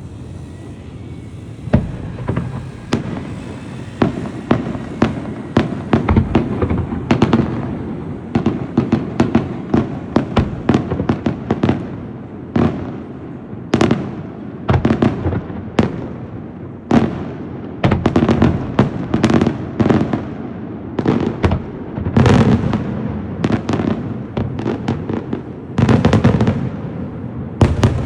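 Fireworks display: an irregular barrage of sharp bangs and cracks, several a second at times, starting about two seconds in.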